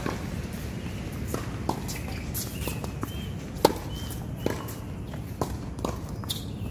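Tennis ball being served and then struck back and forth with rackets in a doubles rally on a hard court, with sharp, irregular hits and bounces, the loudest about three and a half seconds in, and players' footsteps on the court.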